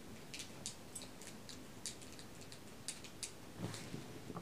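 Faint, irregular light clicks and ticks, a few each second, with a brief low murmur near the end.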